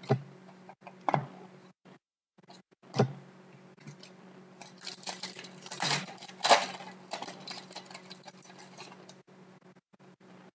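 Trading-card packs being handled and opened: three sharp taps in the first three seconds, then several seconds of crinkling and rustling of pack wrappers and cards, loudest about six seconds in.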